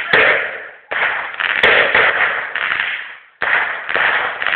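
Firework going off in bursts: each one starts suddenly with a loud hissing crackle that fades over a second or two, with a new burst about a second in and another near the end.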